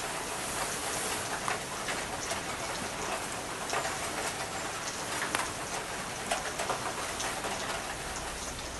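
Steady rain: a dense, even hiss full of small drop ticks, cutting in abruptly where tinkling music stops.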